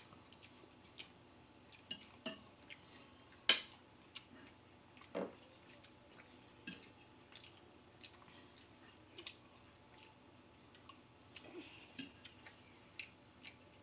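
Eating sounds: chewing, with scattered small clicks and taps of cutlery on dishes. The sharpest click comes about three and a half seconds in.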